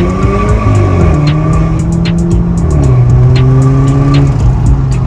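Audi A4's turbocharged 2.0 petrol engine, with catalysts cut out, a downpipe and a tuned exhaust with a Helmholtz resonator, heard from inside the cabin while pulling through the gears. The pitch climbs, drops at an upshift about a second in, holds, drops again near three seconds in, then holds steady.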